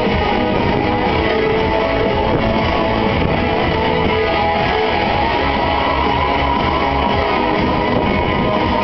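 Music playing steadily and fairly loud, accompanying a mass dance routine.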